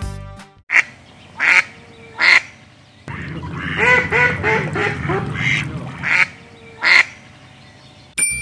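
Duck quacking: a handful of loud, raspy single quacks about a second apart, with a quicker run of softer quacks in the middle. A short chime sounds near the end.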